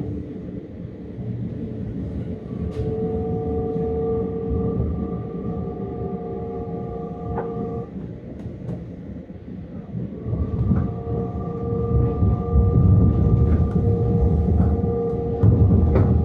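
Metra Electric gallery-car electric train running along the line: a steady low rumble of wheels on rail with occasional sharp clicks, and steady whining tones at several pitches that fade out and come back. The rumble grows louder from about ten seconds in.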